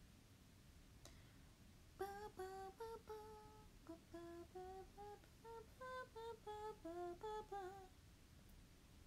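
A young woman humming a short, quick tune through closed lips: about a dozen and a half separate notes that start about two seconds in and stop shortly before the end.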